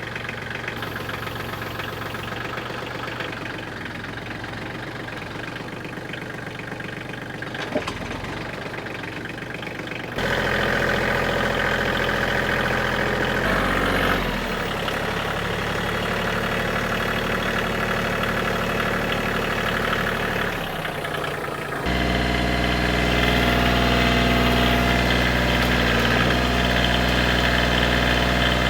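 Koiti compact tractor's diesel engine running steadily, stepping up to a louder, deeper note about ten seconds in and again about twenty-two seconds in.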